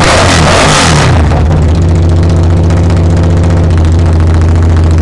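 Suzuki V-Strom 1000's V-twin engine coming down from a throttle blip and settling into a steady idle about a second and a half in.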